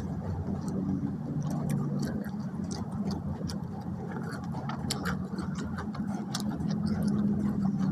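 A person chewing food close to the microphone: irregular sharp, wet mouth clicks, more frequent in the second half, over a steady low hum.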